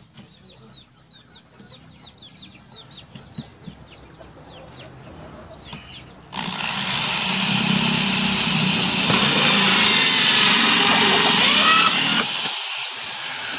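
Faint bird chirping. About six seconds in, an electric drill with a hole saw starts suddenly and runs loud and steady, cutting a hole through a plastic container.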